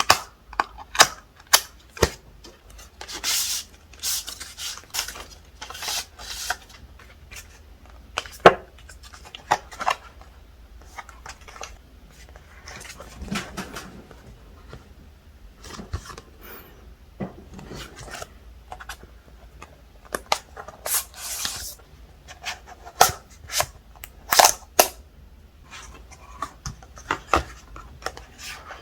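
Apple Watch strap packaging being opened and handled: scattered sharp clicks and taps mixed with short rustling and sliding swishes.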